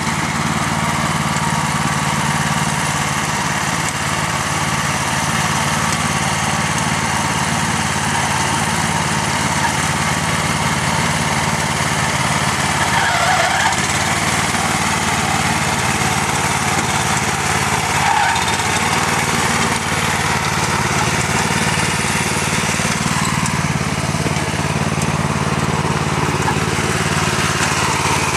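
Merry Tiller's small gasoline engine running steadily under load while its tines break up garden soil.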